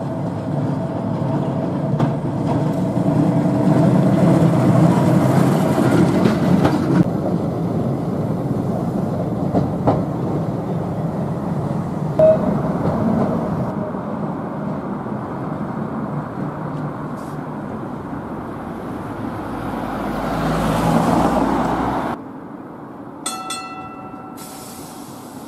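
Vintage double-deck electric tram running on street track: a steady rumble of steel wheels on the rails, growing louder a few seconds in and swelling again later, with a few sharp clicks as it crosses the rail joints. Near the end the sound cuts abruptly to a quieter background with a short ringing tone.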